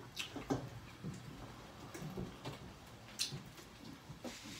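A person chewing a mouthful of taco, a string of irregular short clicks and smacks from the mouth.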